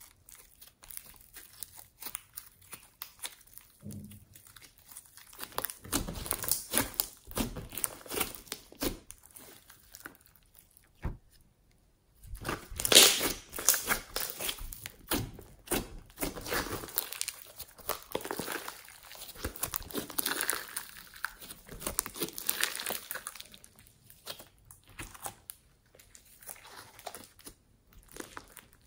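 Fluffy slime being squeezed, stretched and folded by hand, giving irregular crackling, crinkling and tearing sounds. There is a short pause a little before halfway, and the loudest crackle comes just after it.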